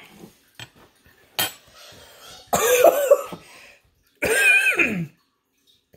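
A man coughing sharply once, then letting out two loud, strained wordless vocal cries, the second sliding down in pitch at its end: his reaction to a spoonful of very strong horseradish burning straight through his nose.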